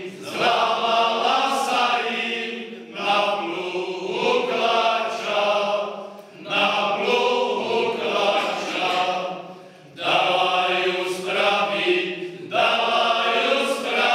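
Men's choir singing a folk song unaccompanied, several male voices together in long phrases with short pauses for breath between them.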